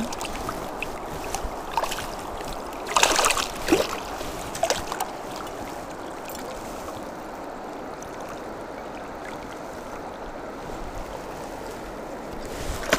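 Steady rush and gurgle of a shallow river riffle flowing past the wading angler, with a few short splashes around three to five seconds in as a trout is handled in the landing net.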